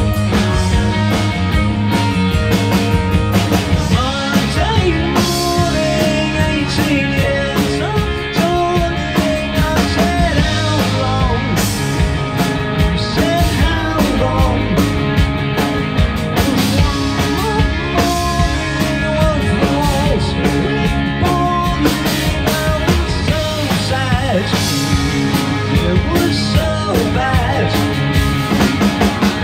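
Live rock band playing: electric guitar, electric bass and a Tama drum kit, running steadily without a break.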